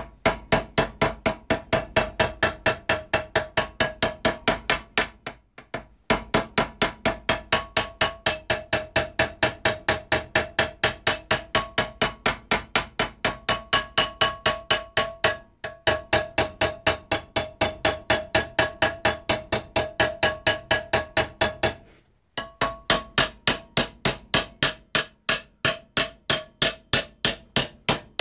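Hammer beating a sheet-steel plate held in a vise, bending its corners and edges over: a quick, steady run of metallic blows, each with a short ring, broken by three brief pauses.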